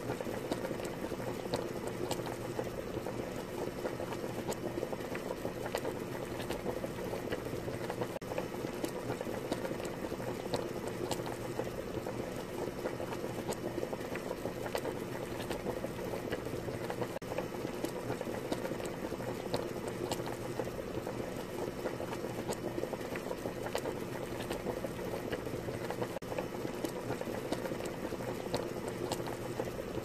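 Milky gukbap broth boiling hard in a hot earthenware ttukbaegi: steady, dense bubbling with many fine pops.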